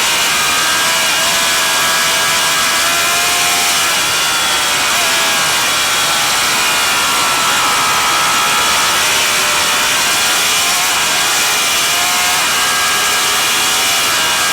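Racing motorcycle engine running hard at high revs, its pitch rising and falling slowly as it is ridden through the gears and corners, over a steady rushing hiss.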